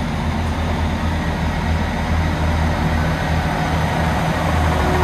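A Class 159 diesel multiple unit's underfloor diesel engines running under power as the train pulls away from the platform, with the rumble of its wheels on the rails. A steady low drone that grows slightly louder as the coaches pass.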